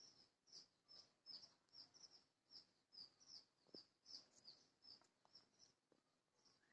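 Faint bird chirping: a steady series of short, high chirps, about two or three a second.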